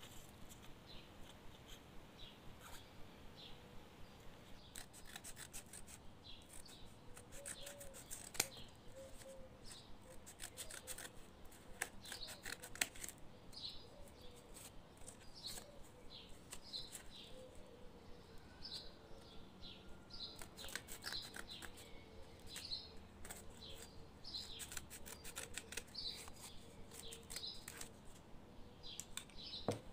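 Small scissors snipping through thin cardboard in several runs of quick cuts. A bird chirps repeatedly in the background, about once a second.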